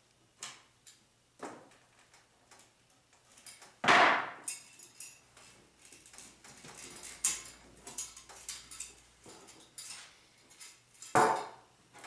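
Clicks, clanks and rattles of a metal cable connector and BX armored cable being handled and set down on a workbench. There is one loud knock about 4 seconds in and another near the end, with lighter ticks in between.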